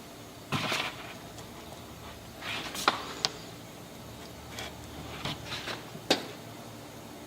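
Hands working parts of a cooler mash tun: a short scrape about half a second in, then scattered sharp clicks and soft taps, the loudest near three seconds and six seconds.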